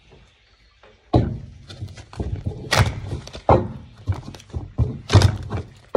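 A series of irregular thunks and knocks as a deck of tarot cards is handled and shuffled, starting about a second in after a short quiet spell.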